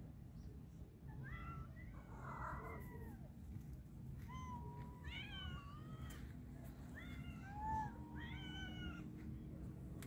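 Cats meowing: a string of drawn-out meows that rise and then fall in pitch, with pauses between them, over a low steady rumble.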